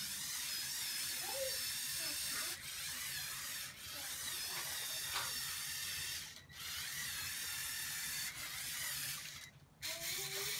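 Lego Technic Volvo L350F wheel loader's electric Power Functions motors and plastic gears whirring as the remote-controlled model drives. The high whine cuts out briefly four times as the motors stop and start again.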